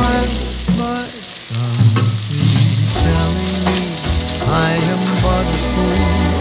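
Diced vegetables sizzling in a stainless steel pot while being stirred and scraped with a wooden spatula, with chunks of meat added partway through. A slow song's accompaniment plays underneath.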